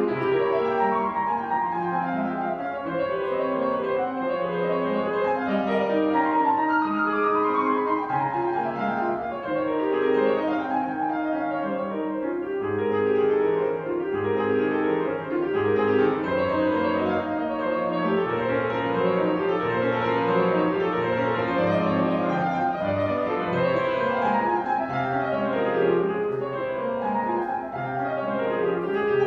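Grand piano played solo: a classical piece in fast, unbroken runs of notes that sweep up and down.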